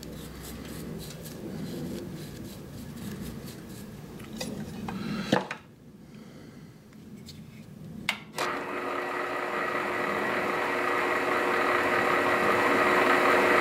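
Light brushing and rubbing with a couple of clicks, then a small lathe motor switched on about eight seconds in, running with a steady whine that slowly grows louder as blue yarn is wound onto the spinning hammer handle.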